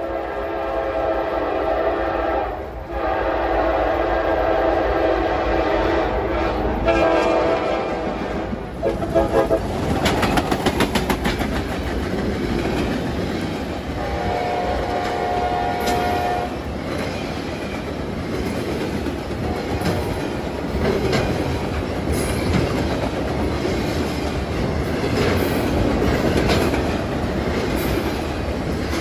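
Freight train at a grade crossing: the locomotive horn sounds two long blasts and then short ones over the first nine seconds or so. After that the cars roll past with a steady rumble and wheels clicking over the rail joints.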